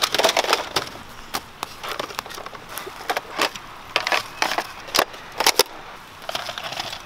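Plastic Nerf toy blasters clacking as they are set down on and picked up from dry pine needles and leaves, with rustling of the leaf litter. A crackly rustle comes in the first second, then a string of irregular sharp clacks.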